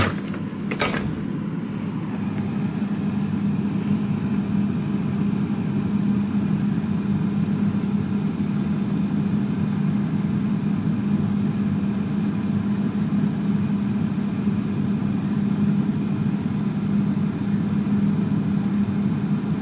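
Refrigerator-freezer running with a steady low hum, its icemaker section under test after the water inlet valve was replaced. There is a short click about a second in.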